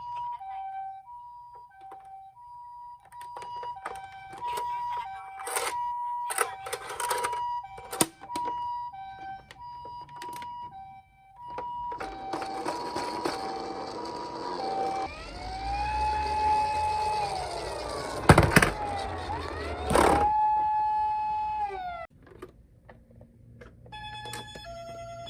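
Electronic sirens of toy ambulance minicars: a hi-lo two-tone siren steps between two notes about once a second, with clicks and clatter from the toys being handled. About halfway a louder siren with rising and falling sweeps comes in over a rushing rolling noise, with two sharp knocks, and cuts off suddenly. Near the end a quick sequence of electronic notes at changing pitches plays.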